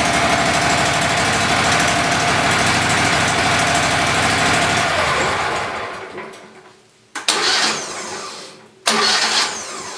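The Wood-Mizer LT15GO sawmill's combustion engine running steadily on its first test run, then dying away about five and a half seconds in. Two sudden loud bursts of sound follow near the end, each tailing off.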